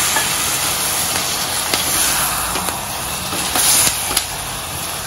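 Cluster beans and peas in masala sizzling with a steady hiss in a hot aluminium pressure cooker as a little water goes in, with a few light clicks of a metal ladle stirring against the pot.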